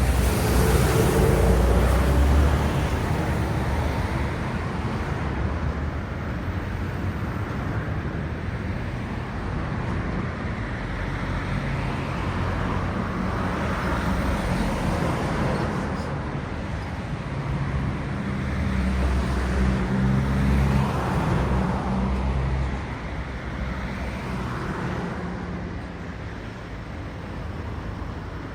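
Road traffic: motor vehicles passing at a roadside, one loud pass in the first couple of seconds, then a steady hum of traffic. About two-thirds of the way through, a deeper engine drone swells and fades.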